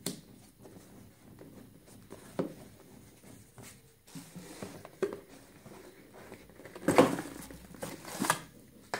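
Hands handling cardboard packaging: scattered light taps and scrapes as a cardboard box insert is lifted out, then louder cardboard and plastic-bag rustling about seven seconds in and again shortly after.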